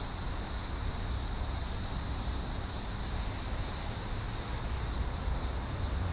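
Steady high-pitched drone of insects, with a low rumble underneath.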